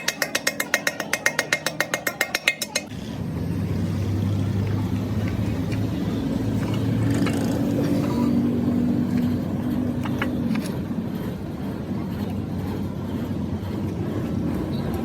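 A fast, even clicking or knocking, about eight strokes a second, stops abruptly about three seconds in. A steady low engine rumble with a hum follows.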